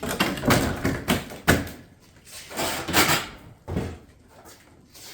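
Metal hip panels being handled and set into place on the roof: several separate knocks and scrapes of sheet metal, the sharpest about a second and a half in.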